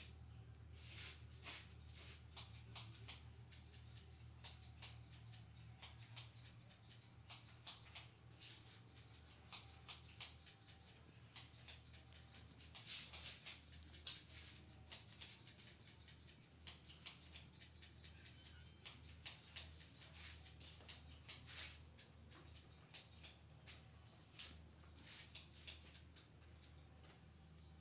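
Fingers rubbing and scratching through hair in a head massage: a quiet, irregular run of crackling rustles over a steady low hum.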